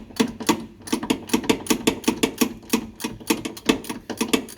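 Hand ratchet clicking in a quick, even run, about four to five sharp metallic clicks a second, as a bolt on the truck is worked.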